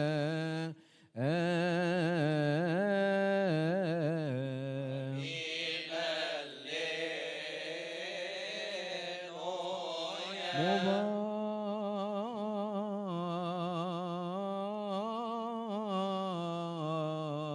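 A single male voice chanting a drawn-out, melismatic Coptic Orthodox liturgical melody, with wavering long-held notes. The chant breaks briefly about a second in, and a bright hiss sits over it from about five to ten seconds in.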